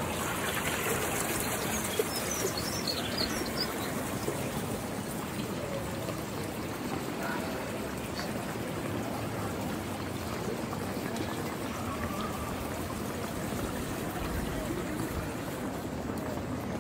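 Shallow brook flowing and splashing over a small drop: a steady rush of running water.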